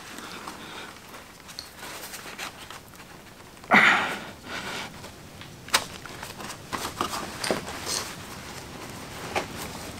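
PVC foil liner rustling and crinkling as hands press and fold it around a plastic pipe end, with a louder brief rustle about four seconds in and a few sharp clicks and taps later on.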